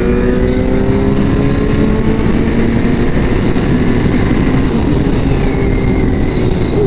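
Yamaha R1's inline-four engine pulling hard under acceleration, its pitch climbing steadily for the first couple of seconds, then drowned by loud wind rushing over the microphone at high speed.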